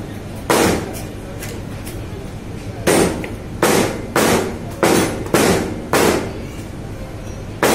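Butcher's meat cleaver chopping on a cutting table: one sharp blow about half a second in, then six evenly spaced blows at about two a second.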